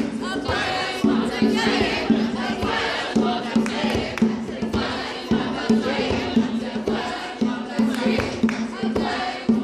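A group of camp staff singing and chanting together, many voices layered over a repeated low held note, with sharp percussive hits scattered throughout.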